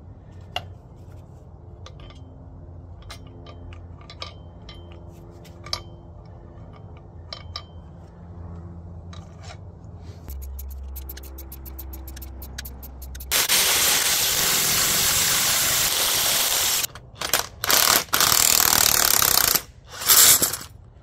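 Metal parts clinking and a short run of rapid ticking while a front coil spring is seated on its strut. Then, about two thirds of the way in, a cordless impact wrench hammering in one long burst and several shorter ones as it backs off the spring compressor's screws to release the spring.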